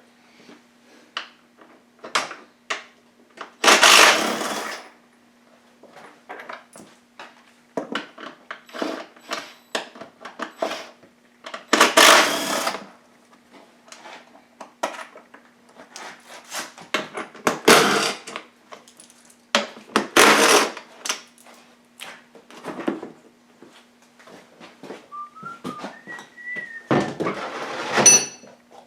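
Hand tools clinking, knocking and scraping against the engine, with a few louder rasping bursts about a second long, over a faint steady hum. A person starts whistling a tune near the end.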